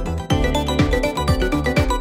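Background music: an upbeat electronic track with a steady drum beat of about two hits a second.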